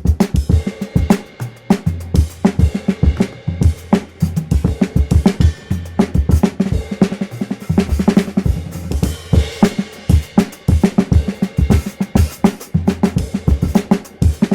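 Acoustic drum kit played at speed: kick drum, snare, toms, hi-hat and cymbals in rapid, dense strokes with fills, with drums ringing low underneath.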